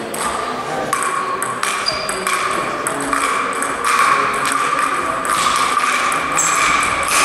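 Table tennis rally with sandpaper-faced bats: a steady run of sharp pings as the plastic ball is struck and bounces on the table, roughly one to two a second, each ringing briefly in the hall.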